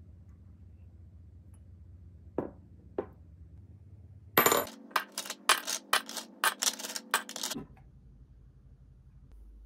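Two single clicks, then a quick run of about a dozen sharp, ringing clinks lasting some three seconds, the first the loudest: hard kitchenware, metal or ceramic, knocking together.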